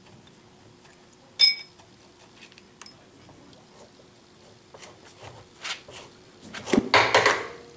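Metal hand-tool work on a milling machine gearbox: a single sharp, ringing metal clink about a second and a half in as the hex key and last bolt are worked, then knocks and a louder scraping clatter near the end as the gearbox housing is pulled off the saddle.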